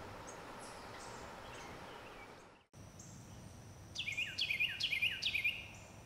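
Carolina wren singing: a loud song of about five quick repeated phrases, each sweeping down from high, beginning about four seconds in. Before it there are faint high chirps and a steady faint high tone.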